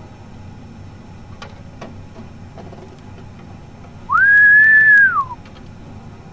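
A person whistles once, a single held note of about a second that slides up at the start and drops away at the end, to make the deer look up. A low steady rumble runs underneath.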